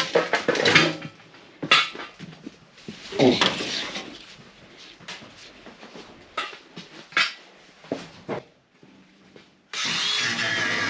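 Scattered knocks, rubs and clatter of things being handled and moved about, with a few sharp knocks standing out. Near the end, background music with guitar comes in abruptly.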